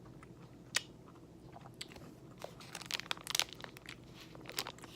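A person chewing a mouthful of peanut granola bar with a peanut butter coating: soft, irregular crunches and clicks, one about a second in, a thick run of them around the middle and a few more near the end.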